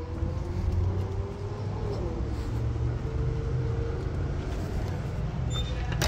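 Steady low rumble of outdoor traffic, with a faint engine hum that drifts slightly in pitch.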